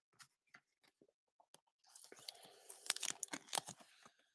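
Faint rustling of a plastic card sleeve and a rigid plastic top loader as a trading card is slid into it. The sound is a few faint ticks at first, then a cluster of small clicks and scrapes about two to four seconds in.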